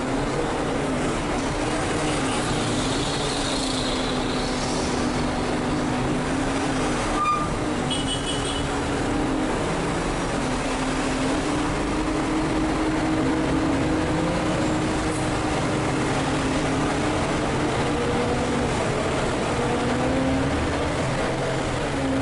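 Volvo B12M biarticulated city bus's diesel engine heard from the driver's cab, running steadily and slowly rising and falling in pitch as the bus creeps along in traffic. A knock comes about seven seconds in, followed by a few short high beeps.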